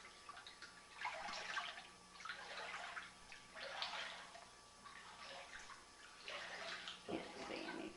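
Floodwater sloshing and swishing around legs as someone wades through a flooded room, in repeated splashy swishes a second or two apart.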